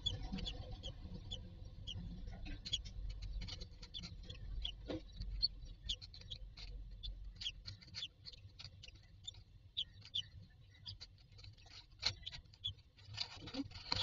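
Faint, high, short cheeps of newly hatched common myna chicks, repeated a few times a second, with clicks and rustling of nest straw as the adult moves over them.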